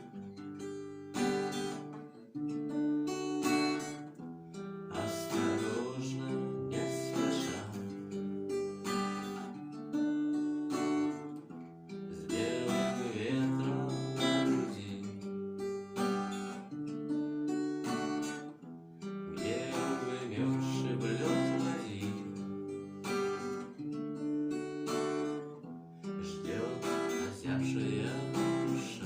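Acoustic guitar strummed in a steady rhythm, the chords changing every second or two.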